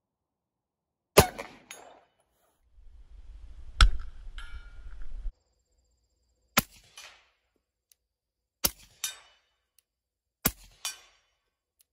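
Five pistol shots: two from an unsuppressed handgun, the second with wind buffeting the microphone, then three from a suppressed pistol about two seconds apart. Each shot is followed about half a second later by a fainter second sound from downrange.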